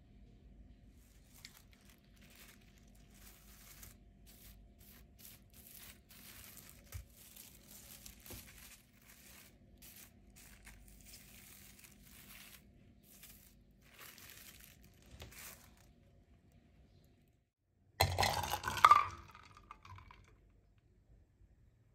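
Plastic cling film crinkling and rustling softly, in repeated strokes, as it is pressed and smoothed over a baking tray by hand. Near the end comes a short, much louder burst of rustling.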